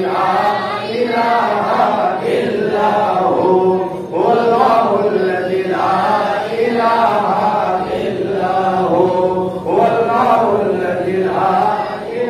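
A man chanting an Islamic devotional milad recitation into a microphone, in long melodic phrases of about two seconds each, one after another without pause.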